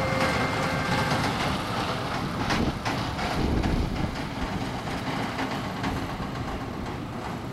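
Steady rumbling roar of an Airbus A320-family jet airliner running on the apron, with a faint whine briefly heard near the start.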